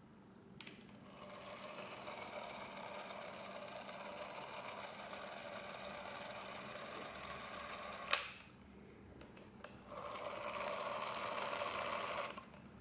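Bauer C3 Super 8 camera's DC micromotor film drive running with a steady mechanical whir. It starts about half a second in and cuts off with a sharp click about eight seconds in, then runs again for about two seconds near the end.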